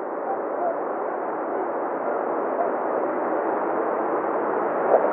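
Jet engine noise from a landing Airbus A380 on its rollout: a steady rushing roar that grows slowly louder as the aircraft comes closer.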